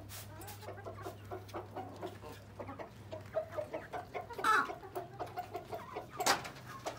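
A flock of chickens clucking, a run of short repeated clucks with one louder call about four and a half seconds in. A sharp knock near the end.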